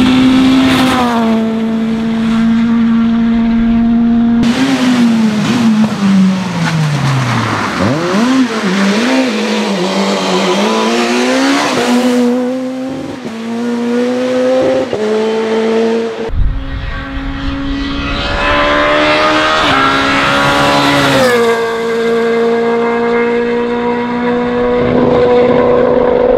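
Peugeot 207 S2000 rally cars' 2.0-litre straight-four engines at high revs through a run of flat-out passes. The pitch holds high, drops and wavers through braking and downshifts, then climbs again under acceleration. The sound cuts abruptly between passes several times.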